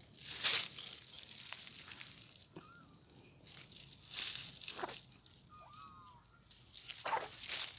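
A cat sneezing: three short, sharp sneezes a few seconds apart, the first the loudest.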